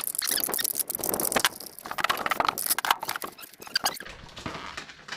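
Dense, irregular clicking and clattering of metal hand tools, a wrench being worked while the seat is taken off the dirt bike. It dies away about four seconds in.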